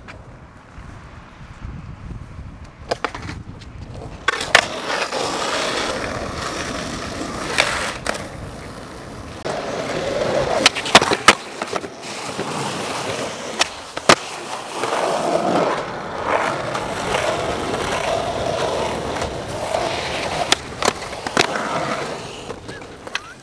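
Skateboard wheels rolling on asphalt, with a string of sharp clacks as the board pops and lands. There is a longer scrape in the second half as the board grinds along a curb edge.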